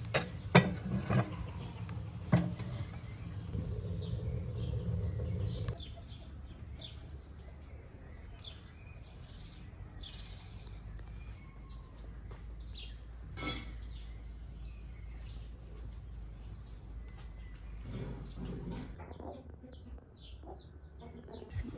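Birds chirping, short high calls about once a second. Near the start, two sharp metal knocks as a pot is set on a wood stove.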